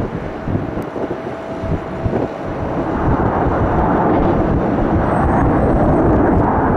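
Jet airliner's engines running loud and close, the rumble swelling about three seconds in and holding, with a faint high fan whine joining in the second half.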